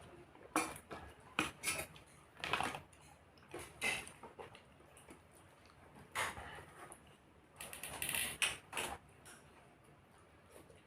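Close-up eating sounds of a person eating a rice meal: short, irregular bursts of chewing and dish or utensil clatter, with a few sharper, louder bursts about two and a half seconds, four seconds, six seconds and eight seconds in.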